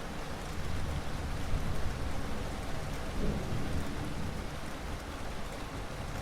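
Steady heavy rain in a thunderstorm, with a low rumble of thunder swelling through the middle.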